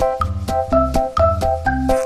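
Background music: a keyboard-like melody of quick notes over a bass line and a steady beat.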